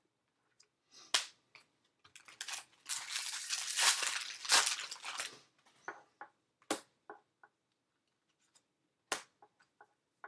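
Baseball cards being flipped through by hand. There are a few sharp snaps of card against card, and about two seconds of dense rustling and scraping of the stack near the middle.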